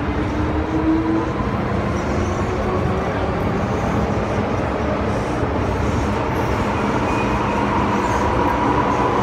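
A metro train running, heard from inside the carriage: a steady rumble and rush of wheels on the track, with faint whining tones that slowly shift in pitch.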